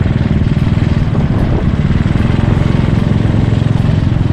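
Motorcycle taxi's engine running steadily under way, heard up close from the pillion seat.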